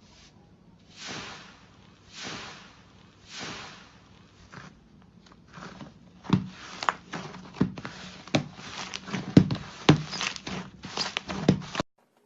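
Slime being played with by hand: a few soft squishing swells, then from about halfway a quick run of sharp pops and clicks. The sound cuts off suddenly near the end.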